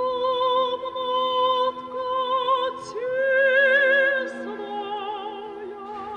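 Opera-style music: a high voice sings long held notes with vibrato over steady lower sustained tones, rising to a higher note about three seconds in.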